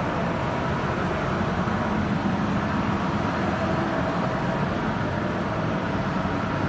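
Heat-setting machine for tubular knit fabric running: a steady, even machinery noise with a faint hum of steady tones in it.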